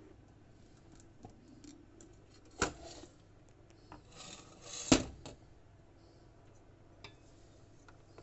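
Glass pot lid clanking against the rim of a steel cooking pot as it is lifted and slid off: a sharp clank, then about two seconds later a short scrape ending in a louder clank, with a couple of faint ticks afterwards.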